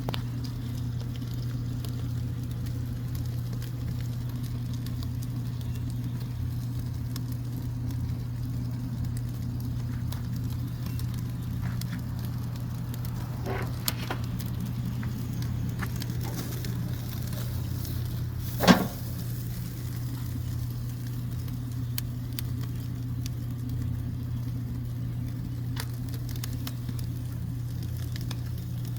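Charcoal and wood-chip fire crackling with scattered light ticks as a chuck roast sears over the flames, over a steady low hum. A sharp pop comes about nineteen seconds in, with a smaller one a few seconds before it.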